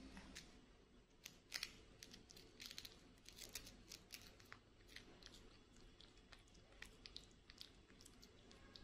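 Young macaque chewing food close to the microphone: a run of small, sharp crunching clicks that starts about a second in, the loudest about one and a half seconds in.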